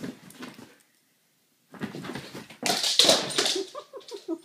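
Siberian husky vocalizing in play: a short sound fading out at the start, then after a pause a louder, noisy outburst about two seconds in, followed by a few short pitched notes near the end.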